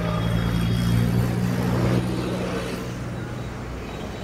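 A motor vehicle's engine running, a steady low hum that is loudest for the first two seconds and then eases off.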